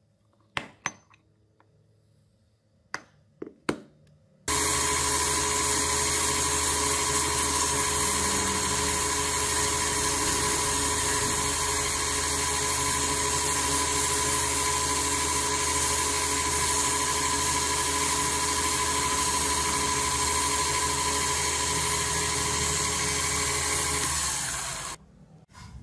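A few sharp clicks, then a small metal lathe starts about four seconds in. It runs steadily with a high whine while turning a brass workpiece, and cuts off abruptly near the end.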